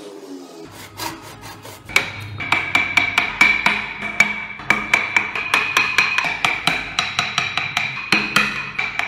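A hand file rasping on carved wood in quick, even strokes, about four a second, starting about two seconds in after a quieter start.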